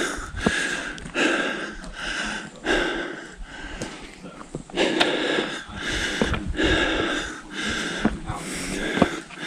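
A hiker breathing hard close to the microphone: quick, rhythmic in-and-out breaths from the effort of climbing steep steps, easing briefly near the middle. Light footfalls on gravel and log steps come through underneath.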